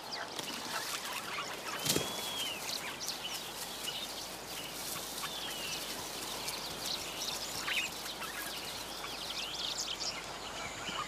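Birds chirping and calling, many short chirps rising and falling in pitch over a steady background hiss, with a single thump about two seconds in.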